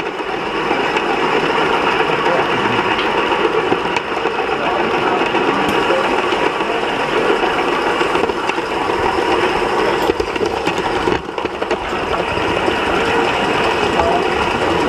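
Gauge 1 live-steam model train running along the track, heard from a camera riding aboard it: a steady, fast mechanical clatter of wheels and running gear on the rails. It dips briefly about eleven seconds in.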